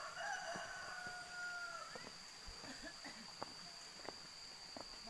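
A rooster crowing once, one long drawn-out call of nearly two seconds that flicks up at the end. A steady high-pitched whine runs underneath, and scattered light clicks follow.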